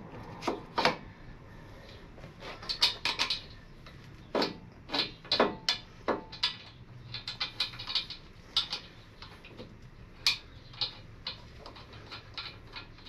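Irregular metal clinks and taps of a motorcycle front brake caliper being fitted over the disc rotor and its mounting bolts started by hand, busiest in the middle.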